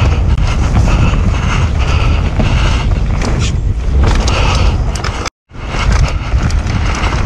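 Wind buffeting a helmet- or chest-mounted camera's microphone, mixed with the rumble and rattle of a mountain bike riding fast over a dirt trail. The sound cuts out briefly about five seconds in.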